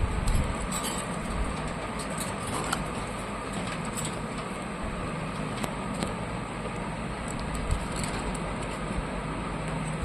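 Wing flaps of a caged parakeet, a few strong low thumps in the first half-second, over a steady rushing background noise, with scattered light clicks.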